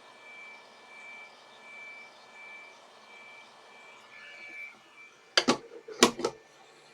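Hot air rework station blowing, a steady hiss with a high whine that pulses evenly, dying away about five seconds in. Then two loud, sharp clacks under a second apart.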